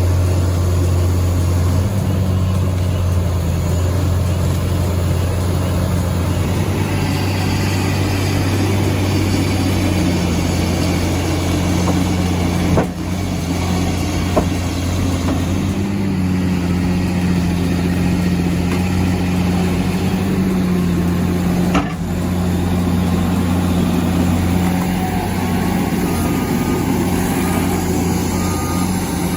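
Heavy equipment's diesel engine running steadily with a low, even hum. The sound dips briefly twice, about 13 and 22 seconds in.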